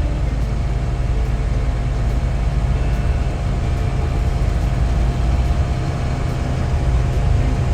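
Heavy 4x4 expedition truck driving on the highway, heard from inside the cab: a steady low drone of engine and road noise with a faint steady whine above it.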